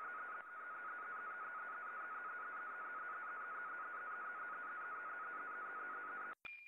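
NAVTEX marine safety broadcast received by radio: a fast, even warble between two close data tones over a bed of radio static. It cuts off suddenly about six seconds in, followed by a click.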